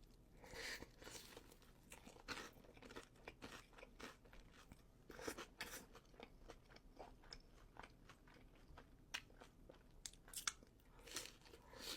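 Faint, close-up crunchy chewing and biting of food, in irregular crisp crunches with short bursts scattered through.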